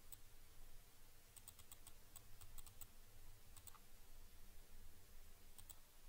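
Computer mouse clicks: about a dozen faint, sharp clicks, several in quick runs of two or three, over a faint low hum.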